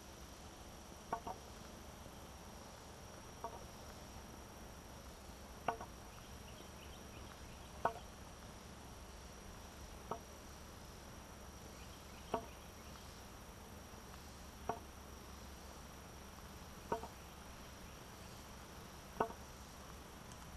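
Wooden walking stick tapping on an asphalt path with a short knock about every two seconds, at a slow, even pace. A steady high whine runs underneath.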